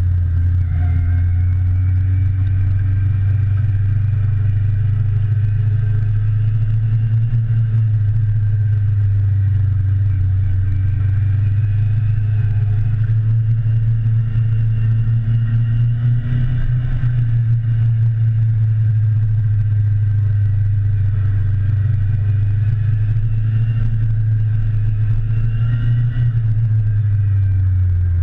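Motorcycle engine running while riding, its pitch rising and falling a little with the throttle, under a heavy steady low rumble.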